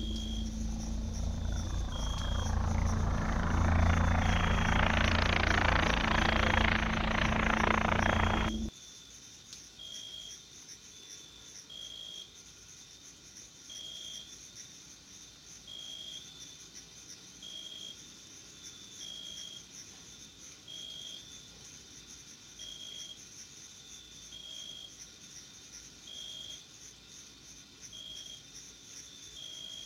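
A beetle's wings buzzing close to the microphone in flight: a loud low drone that grows stronger and then cuts off suddenly about nine seconds in. After it, faint meadow background with a short high chirp repeating every second or two.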